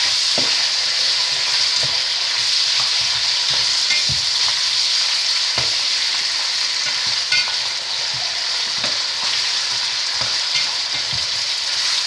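Pork ribs sizzling steadily in hot oil in a kazan while a spatula stirs them, with soft knocks and scrapes of the spatula against the pot now and then.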